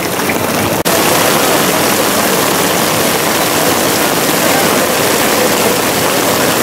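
Heavy rain falling on a tent roof and pouring off its edge: a loud, steady hiss that starts abruptly about a second in.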